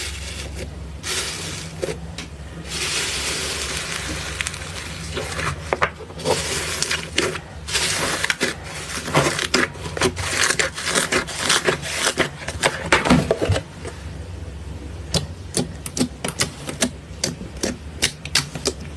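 Slime being handled: stretches of squishy, hissing noise early on, then a long run of sharp crackling pops and clicks over a steady low hum.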